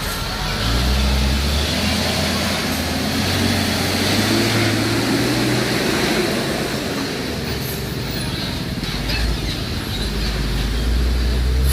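Heavy road traffic with large diesel engines running and passing; one engine rises and then falls in pitch about three to seven seconds in.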